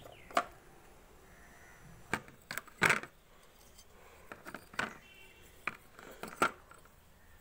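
Broken clay roof-tile pieces clinking and knocking against each other and the pot as they are laid by hand in its bottom for drainage. About seven short, sharp clinks come at uneven intervals, the loudest about three seconds in.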